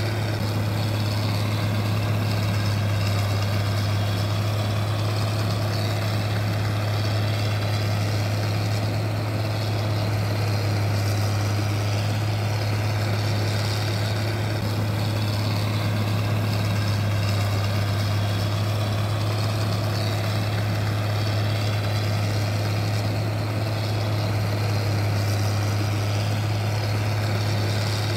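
Steady, low-pitched mechanical hum that holds the same level and pitch throughout, with no knocks or changes.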